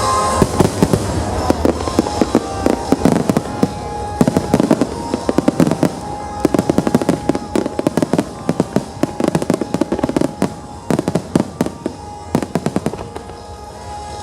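Aerial fireworks bursting in rapid succession, a dense run of bangs and crackles, with music playing underneath. The bursts thin out near the end.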